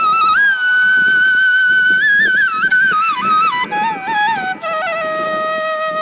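Background music: a solo flute-like wind instrument playing a slow ornamented melody, long held notes that step downward and settle on a lower held note near the end.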